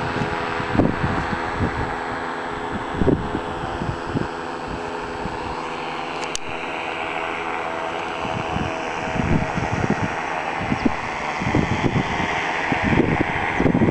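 Steady drone of a paramotor engine carried from the air, with gusts of wind rumbling on the microphone.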